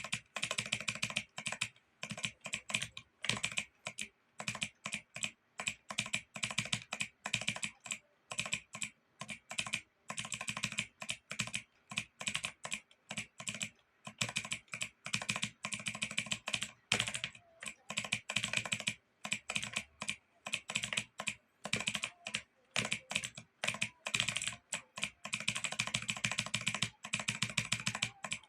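Fingers typing on a computer keyboard: quick runs of key clicks with brief pauses between them.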